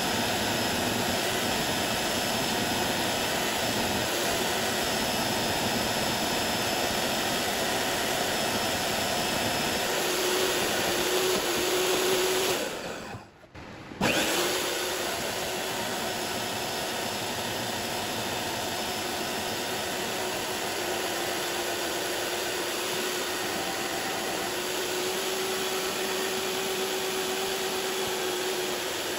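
Power saw running steadily, cutting a blank from a block of aluminium; about halfway through the sound briefly drops away and resumes.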